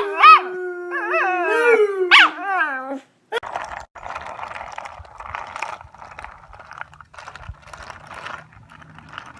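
Dog howling: one drawn-out, wavering howl for about three seconds that slides down in pitch at the end. It is followed by fainter, short noisy sounds repeating every half second or so.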